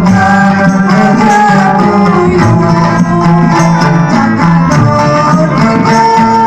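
Live folk-style music played loud through a sound system: a held melody line over a steady hand-drum beat, with a plucked string instrument.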